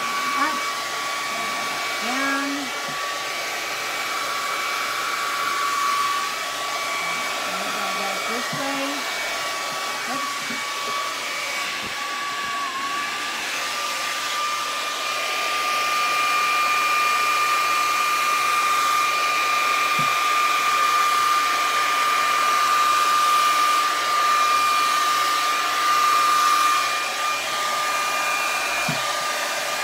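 Handleless hair dryer running steadily: a continuous rush of air with a steady high whine.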